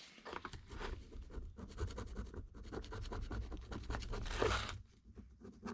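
Light scratching and scraping with many small clicks as small carburetor parts are handled, over a low steady hum, with a brief hiss about four seconds in.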